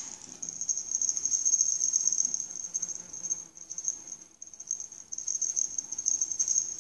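A high-pitched insect chorus trilling steadily with a fast pulsing flutter, dipping briefly around the middle.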